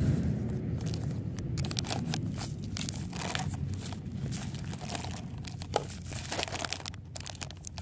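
Plastic noodle bag and foil seasoning sachet crinkling as they are handled and pulled out of a paper instant-noodle cup. The crinkling comes in quick irregular rustles, busiest from about two seconds in until near the end.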